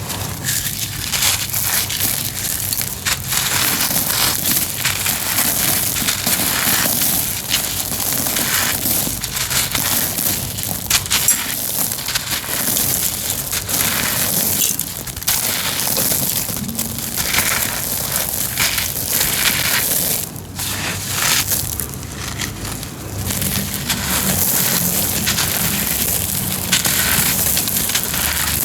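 Homemade dried cement being crushed and crumbled: dense gritty crunching and crackling, with a short lull about two-thirds of the way through.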